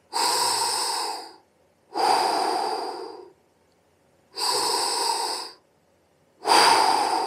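A man breathing heavily inside a welding helmet held close to the microphone: four long breaths about two seconds apart, each lasting just over a second.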